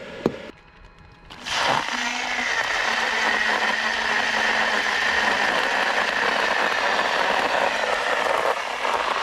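Immersion (stick) blender: a click as its plug goes into the outlet, then about a second and a half in the motor starts and runs steadily with a low hum, blending a thick, icy smoothie in a tall cup.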